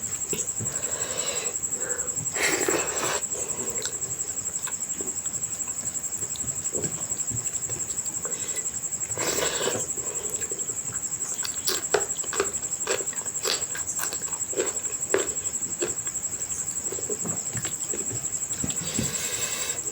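Close-up mouth sounds of a person eating curry and rice: wet chewing and lip smacks in short clicks, with two longer slurping or sucking sounds, about two seconds in and again near nine seconds. A faint steady high-pitched whine runs underneath.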